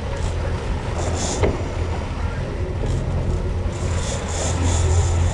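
Sport-fishing boat's engine running steadily underway: a low, even drone under a haze of wind and water rush.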